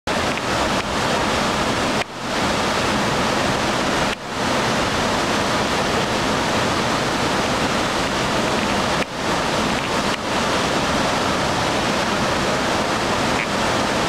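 Waterfall pouring close by: a loud, steady rush of water, briefly dipping four times.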